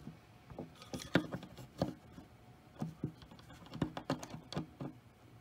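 Locking pliers (Vise-Grips) being handled and set onto a small metal coupler part: a string of light, irregular metal clicks and taps.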